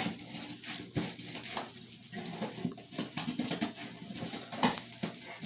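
A dog chewing and tugging at a cardboard box: irregular scraping and crunching of cardboard, with sharp knocks about a second in and again near the end.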